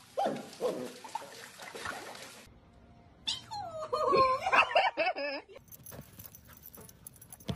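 Puppy whining: a few short falling whines, then after a pause a louder run of high, wavering whines and yelps.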